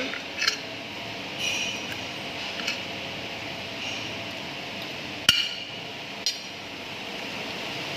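Cutlery clinking against plates: about five short, sharp clinks, the sharpest about five seconds in.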